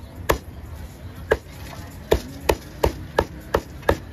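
Kitchen cleaver chopping food on a cutting board in sharp single strikes, slow at first and then about three chops a second.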